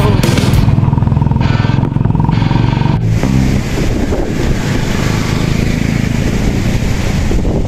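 Motorcycle engines running on a rough dirt road. About three seconds in, the sound changes abruptly from the rider's own bike to motorcycles riding along the road toward and past a roadside camera.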